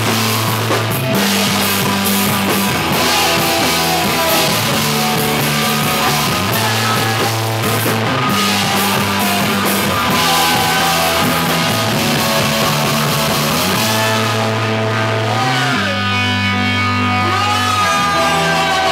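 Rock band playing, with guitar and drum kit; about three-quarters of the way through the drums drop out and the guitar carries on.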